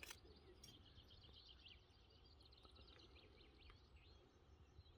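Near silence with faint birdsong, chirps coming through mostly in the first half; a short click right at the start.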